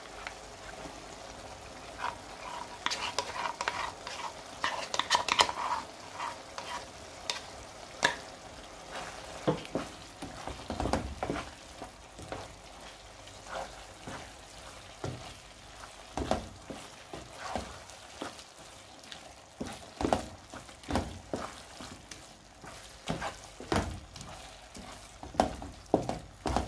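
A spoon stirring a meat, potato and carrot pie filling in a pot as a flour-and-water thickener is worked in, with irregular knocks and scrapes of the spoon against the pot over a faint simmer.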